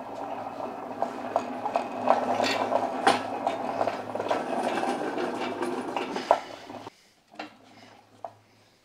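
A steel engine stand loaded with a bare engine, rolled on its casters across a rough concrete floor: a continuous rattling rumble with scattered metal clicks and knocks. It stops suddenly about seven seconds in, followed by a couple of light knocks.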